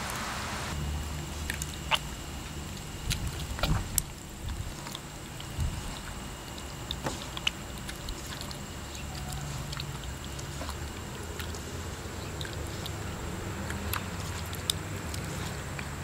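Hands squeezing and kneading a lump of wheat-flour dough under starchy water, washing the starch out of the gluten: soft wet squelches and scattered small clicks and drips. A steady low hum runs beneath.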